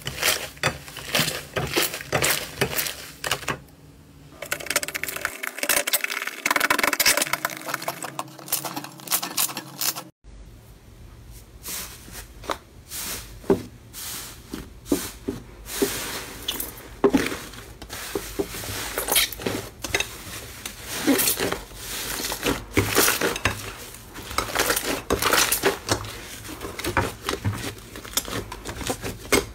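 Hands squishing, pressing and stretching foamy slime on a plate and in a glass dish: a dense string of small wet crackles and pops, with occasional knocks of slime and fingers on the dish. It breaks off briefly about a third of the way in and resumes.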